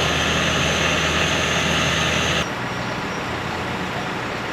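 Heavy machinery engine running steadily under a broad hiss, cut off abruptly about two and a half seconds in by a quieter, similar steady engine sound.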